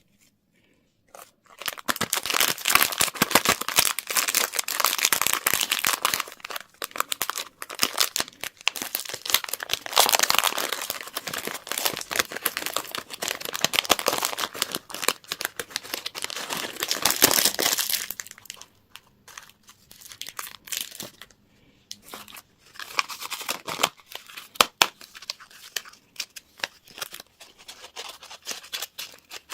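Candy wrapper being torn open and crinkled by hand: a dense run of crackling and tearing that starts a moment in, then thins out to scattered crinkles and clicks over the last third.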